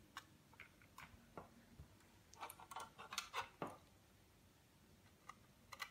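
Faint clicks and light plastic handling noise as SC fibre-optic connectors are pushed into the optical ports of Netlink HTB-3100 media converters. The clicks are scattered, with most of them bunched together a little past the middle.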